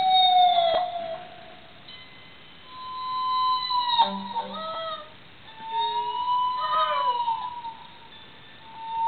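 Long sustained electric guitar notes, swelling in three times with slow bends, and a greyhound roo-ing along in wavering, falling howls, set off by the guitar.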